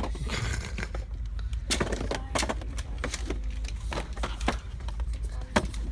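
Scattered light clicks and taps over a steady low rumble.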